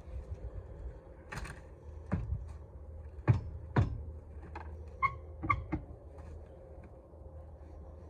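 A series of short, sharp knocks and clicks, about a dozen at irregular intervals, a few with a brief ringing tone, over a low steady hum.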